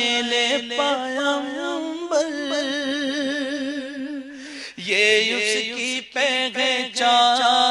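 A man singing a naat, an Urdu devotional song, drawing out long wavering, ornamented notes. About four and a half seconds in there is a brief break, then the next phrase starts lower.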